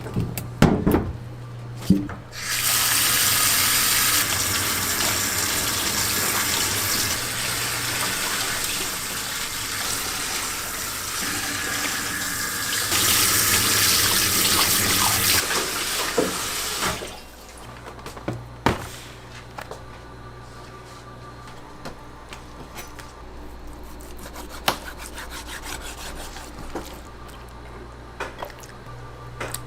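Water running hard from a tap into a sink for about fifteen seconds, then turned off. Light knocks and clatters of kitchen handling come before and after it.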